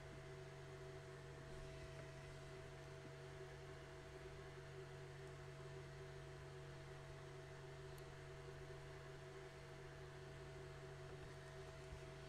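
Near silence with a faint, steady hum: room tone.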